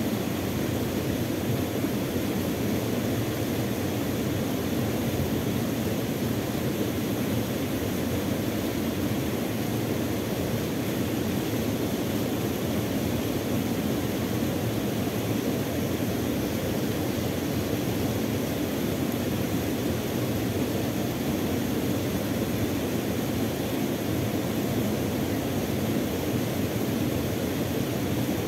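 Steady rush of water from a small waterfall and rapids pouring into a river pool, an even noise that does not change.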